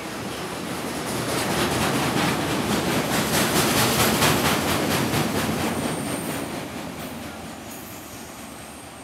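Freight wagons rolling past on steel rails: a rapid, even clatter of wheels over rail joints that builds to its loudest about four seconds in, then fades as the last wagon draws away. A thin high wheel squeal sounds near the end.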